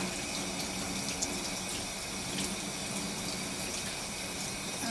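Tap water running steadily into a stainless steel sink while a squid is rinsed by hand under the stream, with a few faint clicks.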